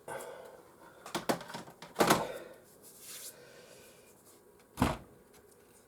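Hard knocks and clicks of PlayStation 4 parts being handled: a couple of clicks about a second in, the loudest knock about two seconds in, a short scrape just after three seconds, and one more knock near five seconds.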